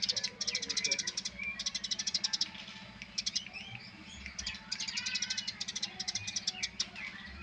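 Eurasian tree sparrows chattering: bouts of very rapid, high chirps, each under a second long, thinning out in the middle, over a steady low hum.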